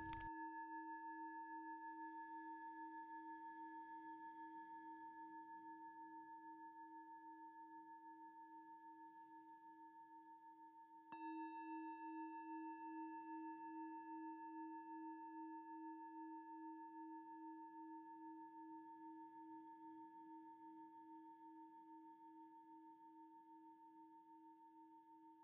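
Singing bowl ringing with a slow wavering pulse and slowly fading, struck again about eleven seconds in and ringing out once more.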